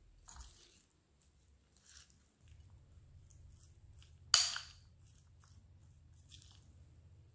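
Metal spoon stirring a wet filling of chopped tuna, onion, pepper and diced cheese in a glass bowl: soft squishing and scraping, with one sharp clink of the spoon against the glass about four seconds in.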